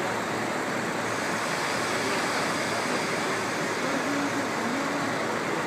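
Diesel railcars idling at a station platform: a steady engine drone.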